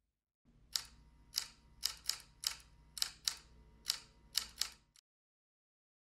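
Typewriter keys clacking, about ten uneven keystrokes over a low hum, starting and stopping abruptly.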